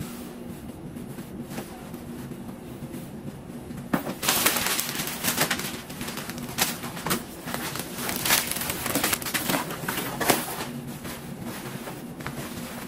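Packaging being handled during an unboxing: from about four seconds in, irregular rustling and crinkling that comes and goes until near the end, over a low steady hum.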